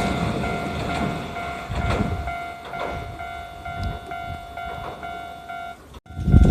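Hiroden train wheels clacking over rail joints, the clacks growing fainter and further apart as the train moves off. A level-crossing warning bell rings steadily in pulses throughout. About six seconds in, the sound cuts off abruptly and a louder rumble starts.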